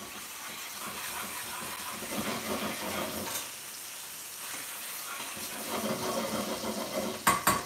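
Ginger and garlic paste sizzling in hot oil in a metal frying pan, stirred with a metal ladle. A few sharp metal knocks near the end, the ladle or pan striking metal.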